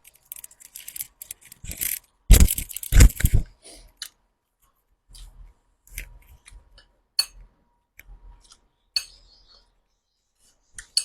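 Close-miked eating: crunchy chewing with irregular sharp clicks and crackles, the loudest burst about two to three and a half seconds in, then softer scattered clicks.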